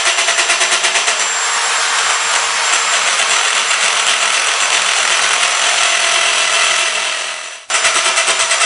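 Power drill grinding its bit into a smartphone's toughened glass screen, a loud steady grinding with a fast pulse. About seven and a half seconds in the sound dies away, then starts again abruptly.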